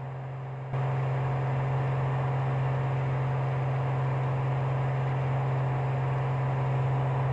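Cirrus SR22's six-cylinder piston engine and propeller droning steadily in climb, heard from inside the cabin as a constant low hum over a rushing noise. The drone jumps up in loudness abruptly under a second in, then holds steady.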